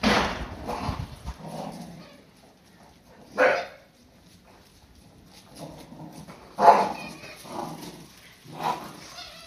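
Cardigan Welsh Corgis barking and yipping in short, separate calls, about seven of them, the loudest at the very start and another sharp one about two-thirds through.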